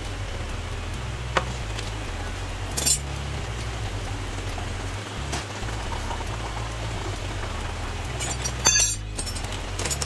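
Engine oil draining in a thin steady stream from the oil pan into a drain pan, with a few sharp metallic clinks, the loudest cluster near the end.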